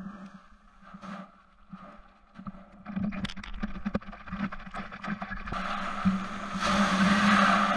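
Sea water splashing and slapping against a board as a prone paddler strokes out through the shore break, with a run of sharp splashes in the middle. About two-thirds of the way in, a loud rush of breaking surf swells up over a steady low hum.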